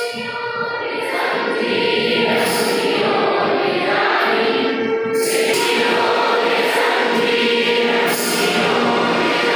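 A group of students singing together as a choir, over steady held instrumental notes.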